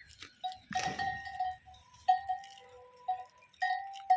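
Metal neck bells on a flock of sheep and goats clanking as the animals move: a handful of separate strikes, each ringing on briefly in a few clear tones.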